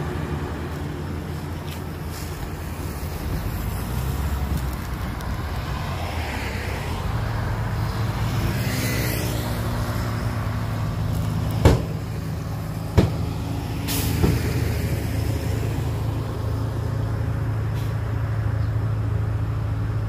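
Heavy diesel engine of earthmoving equipment running steadily, its pitch shifting as the revs change about halfway through, with two sharp knocks a little over a second apart just after.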